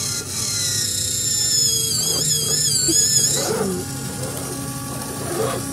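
Electric motor and gearbox of an RGT 186100 Rubicon RC crawler whining as it crawls up a steep bank under load. The high whine wavers in pitch with the throttle and stops about three and a half seconds in.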